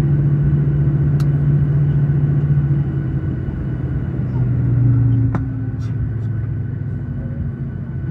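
Cabin noise of a Boeing 737-900 taxiing, its CFM56-7B engines at idle: a steady low hum that drops slightly in pitch about three seconds in, with a sharp click a little past five seconds.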